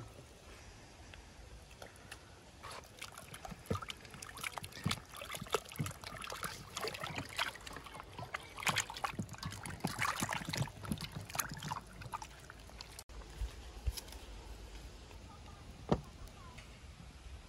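Raw lamb head and meat being rinsed by hand in a steel bowl of water: irregular splashing and sloshing as the pieces are rubbed and turned. Quieter later, with one sharp knock near the end as the metal bowl is set down on a wooden stump.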